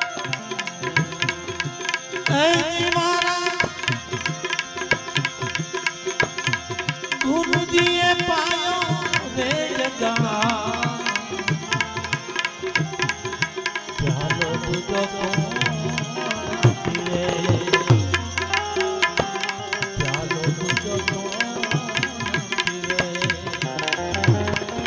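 Devotional folk bhajan music played on tabla, harmonium and small hand cymbals (manjira). The harmonium holds sustained chords while the tabla and cymbals keep up a dense rhythm.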